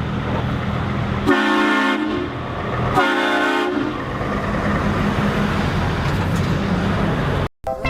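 Two long blasts of a large vehicle's air horn, about a second and a half apart, over a steady low engine rumble.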